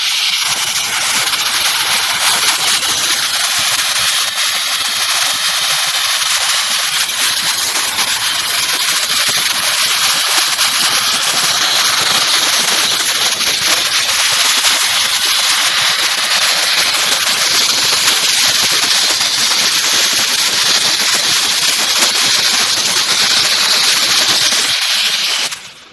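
A blow gun gives a long, continuous blast of compressed air, a loud steady hiss, cleaning the motor's internal parts. It cuts off suddenly near the end.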